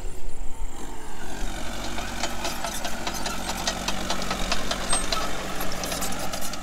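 Engine of a heavy machine running steadily, with many light clicks and knocks from about two seconds in.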